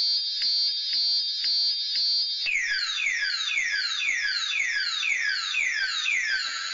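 Viper car alarm siren cycling through its tones: a steady, pulsing high tone, then about two and a half seconds in it switches to a falling chirp that repeats a little over twice a second.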